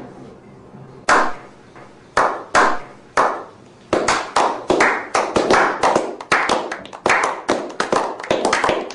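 Slow clap: single hand claps about a second apart at first, joined by more people from about four seconds in and speeding up into quick group applause.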